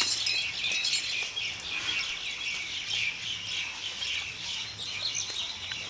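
Birds chirping steadily: many short, quick, high chirps overlapping with one another.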